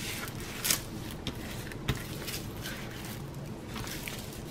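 Hands smoothing the clear plastic cover film back down over a diamond painting canvas: soft rustling and rubbing of film and canvas, with a couple of light taps.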